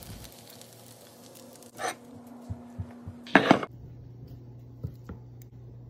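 A few light clicks and knocks of kitchen utensils on a plate, the loudest a short clatter about three and a half seconds in, over a low steady hum.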